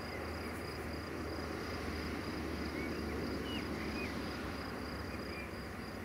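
Outdoor ambience: an insect chirping in a steady train of high, evenly spaced pulses, a few short bird chirps around the middle, and a steady low hum underneath.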